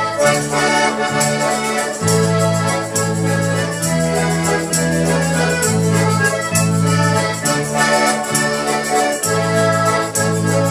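Several button accordions playing a lively folk tune together, with bass chords changing about once a second under the melody, and a tambourine shaken and struck in time.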